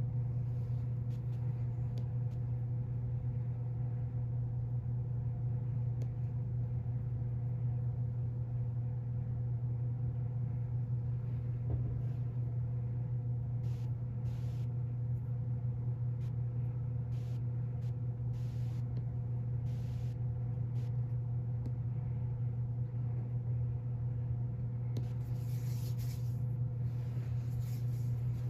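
A steady low machine hum that does not change, with a few faint short rustles in the second half, more of them near the end.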